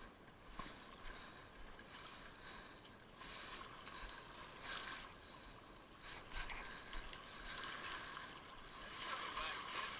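Shallow water splashing and lapping at the shoreline in irregular surges.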